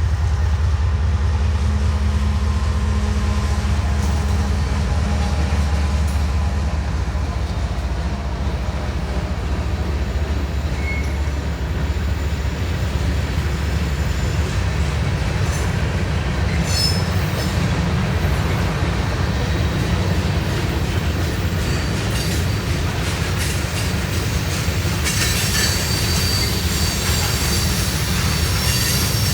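Freight train passing close by: a single diesel locomotive's deep engine rumble in the first several seconds, then the loaded freight cars rolling by with steady wheel and rail noise. A high wheel squeal joins in near the end.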